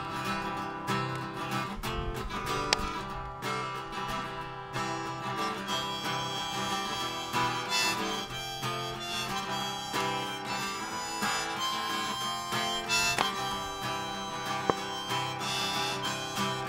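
Background music with harmonica and acoustic guitar.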